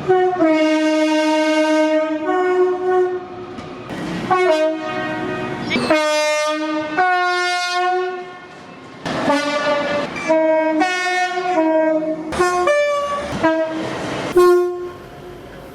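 Train's multi-note air horn sounding a chord in a string of blasts: a long blast of about three seconds at the start, then a run of shorter blasts, several in quick succession.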